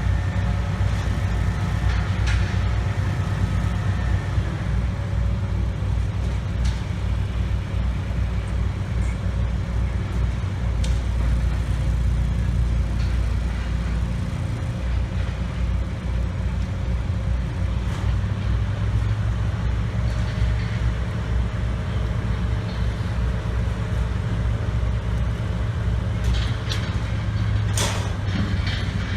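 Heavy engine of construction machinery running steadily, with a few short clicks or knocks near the end.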